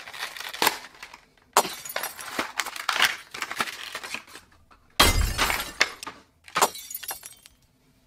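Crinkling and crackling of plastic toy packaging (a clear blister and a plastic bag) being handled and opened, in several bursts. The loudest starts about five seconds in with a thump.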